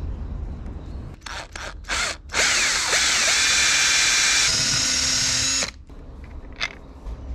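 Cordless drill blipped a few times, then run steadily for about three seconds, its pitch shifting partway through, before it stops suddenly.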